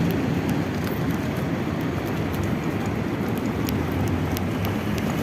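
Steady rumble and rattle of wheels rolling over a rough, bumpy path, with light clicks mixed in.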